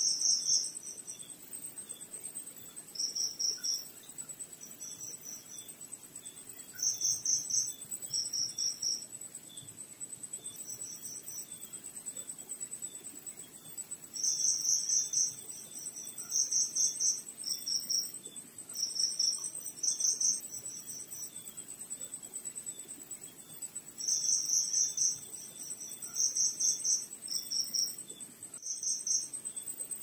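Crickets chirping: one loud cricket chirps in bouts of rapid pulses, each a second or less, every few seconds at irregular intervals, over a steady high-pitched trill and fainter, evenly spaced chirps from other crickets.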